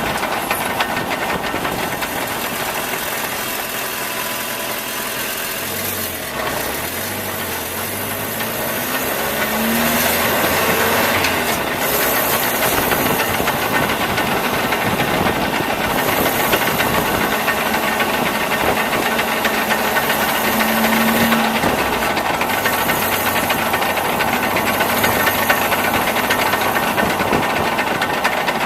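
Nissan pickup running, heard through a camera mounted under the truck: steady engine and underbody noise with a few brief rises in pitch. It carries the unexplained noise the owner is trying to track down.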